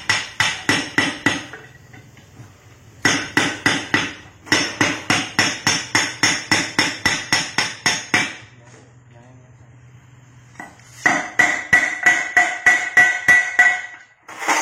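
A hammer striking metal in three runs of quick blows, about four a second, each blow ringing. There is a short pause between runs.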